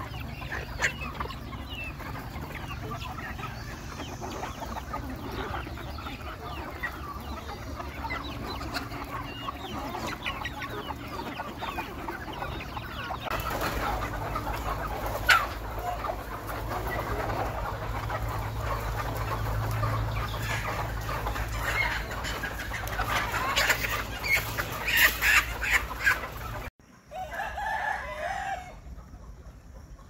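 A large flock of native desi chickens clucking and calling, with roosters crowing among them. The calls grow louder and more frequent toward the end, before a brief cut.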